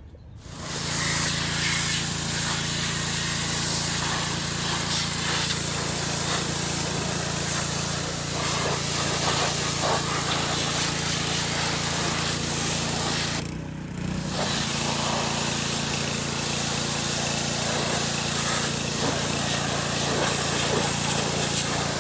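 Pressure washer running and spraying water: a steady motor hum under a loud hiss of spray, which drops off briefly about fourteen seconds in.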